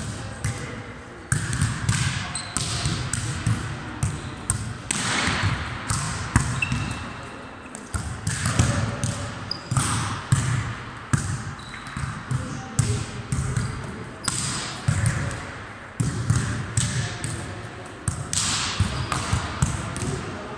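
Volleyballs being bumped off forearms and bouncing on a sports hall floor: many sharp slaps and thuds at uneven intervals, echoing in the hall.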